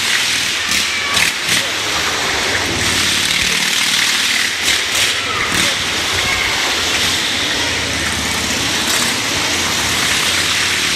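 Motorcycle engine running hard as it circles the wooden wall of a Wall of Death drum, loud and continuous, with a few sharp knocks in the first half.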